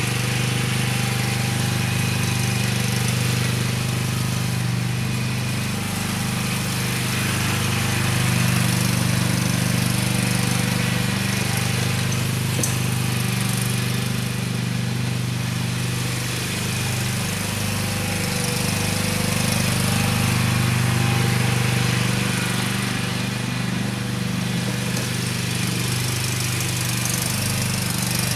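A Cub Cadet riding tractor's engine and the towed Gravely 5-horsepower leaf blower's Honda engine running together at a steady speed, the blower fan rushing air. The sound swells and eases a little as the machines circle the lawn.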